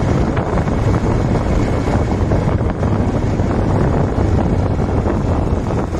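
Wind buffeting the microphone over a motorcycle engine running steadily while riding at speed, a constant low rumble.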